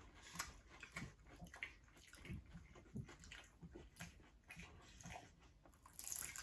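Faint chewing of a crispy fried peach mango pie: scattered small crunches and wet mouth clicks.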